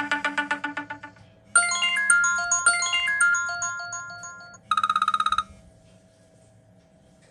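iPhone 5s ringtone tunes playing. A quick run of rapidly repeated notes is followed by a melody of held, chime-like electronic notes. About five seconds in there is a short, very fast pulsing trill, and then the sound stops.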